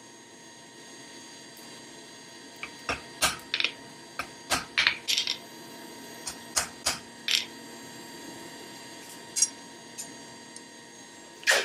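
Irregular sharp metallic clinks, about a dozen in quick succession, each with a short ring, as steel blacksmith's tools are handled and knocked together; another clink comes a few seconds later and a louder one near the end, over a faint steady hum.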